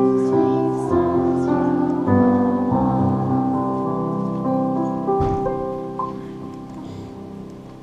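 Piano playing slow held chords that die away toward the end, closing out a song.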